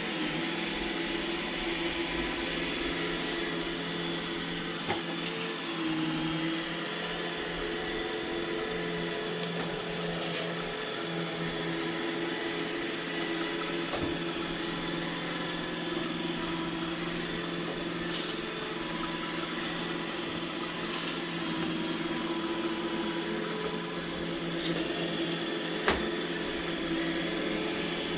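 iRobot Roomba E6 robot vacuum running steadily, its motor and brushes giving a constant hum with a few steady whining tones. A few sharp knocks stand out, one about two-thirds of the way through and the loudest near the end.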